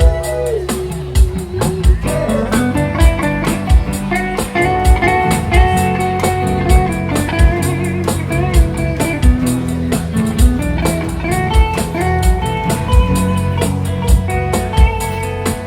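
Live band playing an instrumental passage: a guitar picks out a melody over a steady drum beat.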